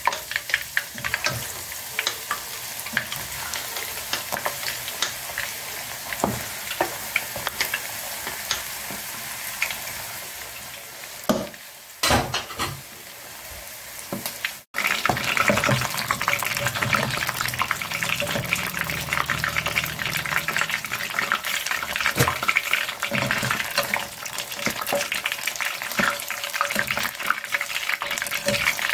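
Oysters deep-frying in a pot of hot oil: a steady sizzle with dense crackling pops. About halfway through the sound drops out for a moment, then comes back louder and busier.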